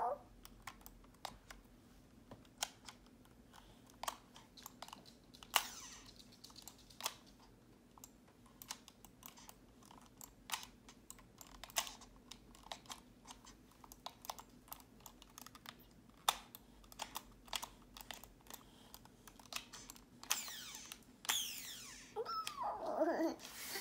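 Small plastic buttons clicked over and over at an uneven pace by a toddler's fingers. Near the end the toddler's voice is heard briefly.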